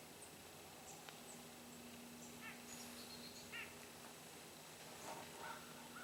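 Faint, short bird calls now and then, a few quick notes at a time, over quiet woodland background.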